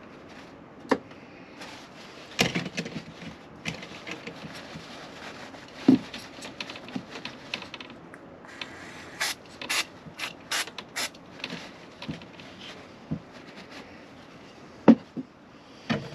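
Irregular clicks and knocks of a trim tool pressing new trim into a caravan window frame's channel, with a quicker run of sharper clicks around the middle.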